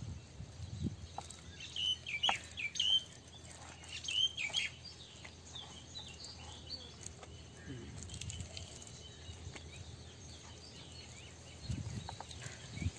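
A hand rubbing and pressing thick masala paste into a large scored whole fish, with soft low handling sounds near the start and again near the end. Short high chirps sound in the background, several of them between about two and five seconds in.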